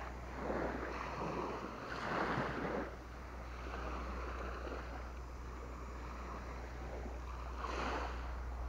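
Small sea waves washing up onto a sandy beach, swelling from about half a second in to three seconds and again near the end, over a steady low rumble of wind on the microphone.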